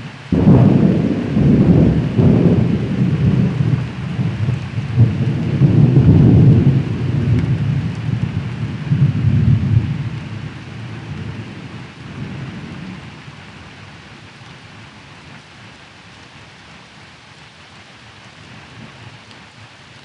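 Thunder during a rainstorm: a sudden loud clap just after the start that rolls on in low surges for about ten seconds and then dies away, over steady rain.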